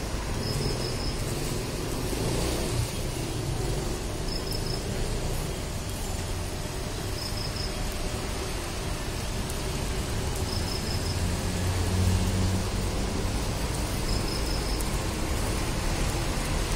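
Street background noise: a steady hiss with passing traffic rumble, swelling about twelve seconds in. Over it, a short high chirp of three or four quick notes repeats about every three seconds.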